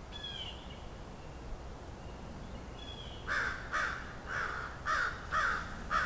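A crow cawing about six times in a row, roughly half a second apart, starting a little past three seconds in. Before that, a couple of brief high whistled bird notes.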